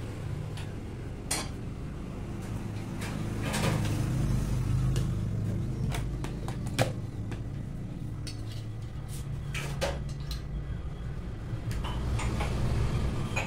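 Dishes and metal utensils clinking and knocking at irregular intervals in a kitchen, over a low steady hum.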